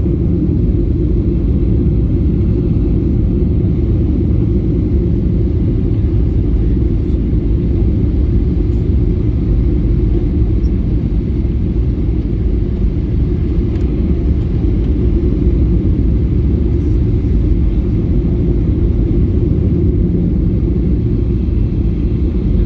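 Steady low rumble of an airliner's engines and airflow heard inside the passenger cabin, unchanging throughout.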